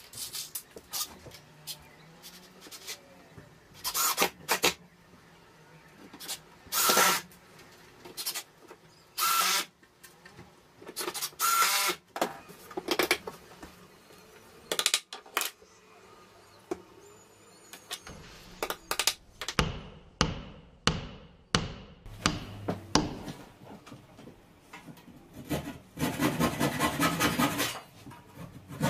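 A cordless drill runs in short bursts, boring dowel holes into a timber frame. A run of sharp knocks follows. Near the end, a hand saw rasps in quick strokes, trimming the dowel ends flush.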